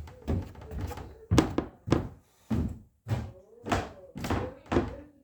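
A series of short dull knocks, about one every half second.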